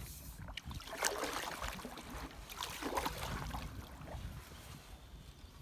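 Canoe paddle strokes swishing through lake water, two strokes about two seconds apart, over a low wind rumble on the microphone.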